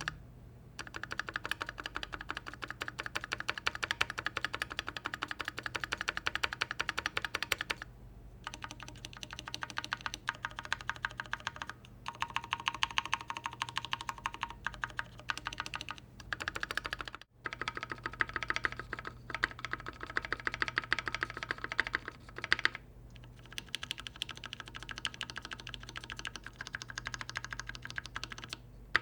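Long keys (spacebar, shift, enter and the like) on a custom Keychron Q3 mechanical keyboard pressed in rapid runs of clacks for a stabilizer sound test. Hand-lubed Staebies stabilizers are heard first, then the lubed stock stabilizers after a short break about 17 seconds in.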